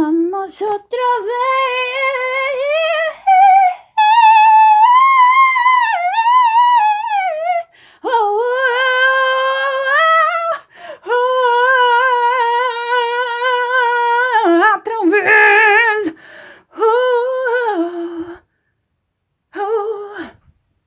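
A woman singing a cappella without words, in long held notes that waver with vibrato. It comes in several phrases with short breaks, the pitch climbing higher a few seconds in. It stops about 18 seconds in, and one short note follows near the end.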